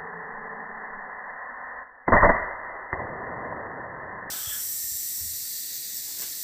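Air rifle fired once about two seconds in: a single sharp shot with a short tail, followed a second later by a faint click. A steady hiss runs underneath.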